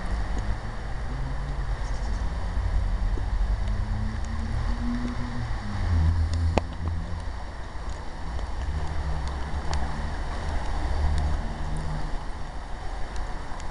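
Outdoor rain ambience: a wavering low rumble of wind on the microphone under a faint hiss of rain, with a few light ticks of drips.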